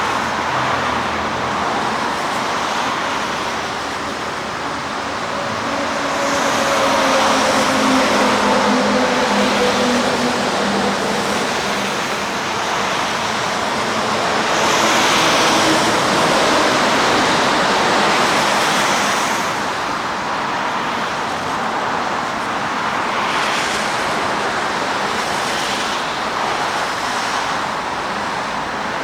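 Steady road traffic noise with vehicles passing, swelling louder twice, the first time with a falling engine tone as a vehicle goes by.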